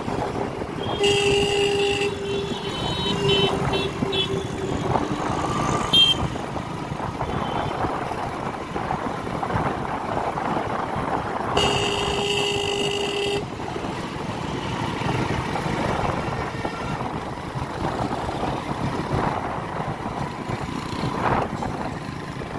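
Street traffic heard from a moving two-wheeler: a steady run of engine, tyre and wind noise, with vehicle horns honking. A long horn blast comes about a second in, short toots follow over the next few seconds, and a second long blast comes about twelve seconds in.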